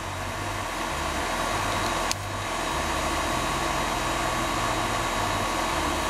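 Outdoor air-conditioner condensing unit running, with the steady whir of its condenser fan and compressor under load. One sharp click comes about two seconds in.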